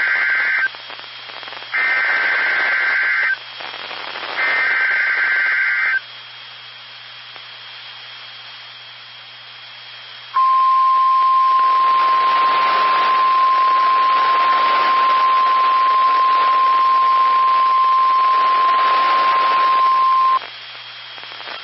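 NOAA Weather Radio Emergency Alert System signal over radio hiss. It opens with the end of one digital SAME header data burst, then two more, about a second and a half each, and a few seconds of hiss. Then comes the steady 1050 Hz warning alarm tone, held for about ten seconds before it cuts off. The sequence announces a severe thunderstorm watch.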